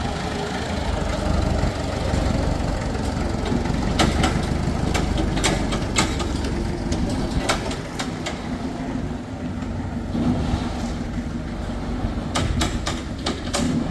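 Old Clark forklift's engine running steadily as it drives across concrete carrying a pallet of bags, with sharp knocks and clanks now and then.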